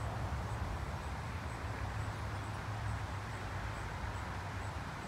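Wind buffeting the phone's microphone: a steady low rumble with a hiss above it, and a faint high tick repeating about twice a second.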